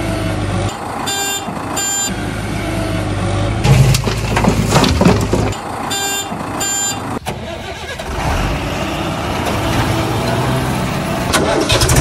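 Heavy diesel engine running steadily, with a reversing alarm beeping twice about a second in and twice again about six seconds in. A louder rattling stretch comes around four seconds in.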